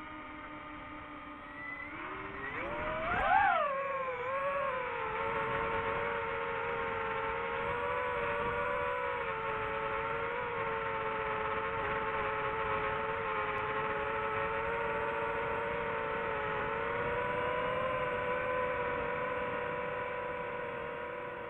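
DJI FPV drone's quadcopter motors whining: a steady tone that climbs sharply about two seconds in, peaks, then settles into a steady higher whine that wavers slightly in pitch.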